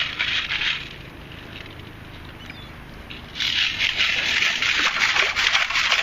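Metal-detecting scoop digging into wet beach sand and pebbles: a short scrape at the start, then from about three seconds in a continuous gritty rattle and slosh of sand and stones.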